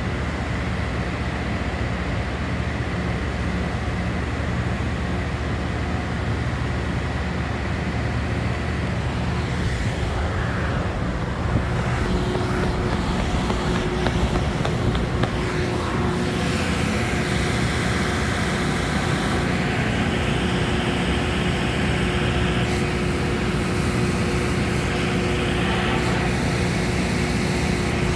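CSX freight train running past at speed: a steady rumble and clatter of wheels and cars on the rails, turning hissier about halfway through.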